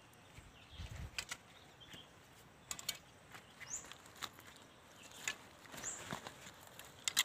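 Faint scattered clicks and rustles of hands working loose soil and the branches of a serut shrub around its roots, with a low thump about a second in. A few short, high rising chirps sound over it.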